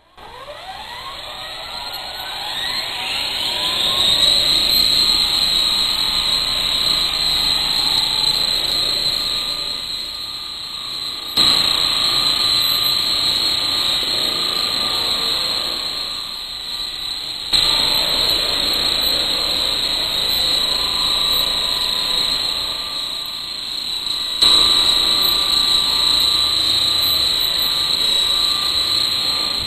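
Blade CP electric collective-pitch R/C helicopter spooling up, its whine rising in pitch over the first few seconds, then its motor and rotor running at a steady high whine in flight. The loudness sags and jumps back up sharply three times.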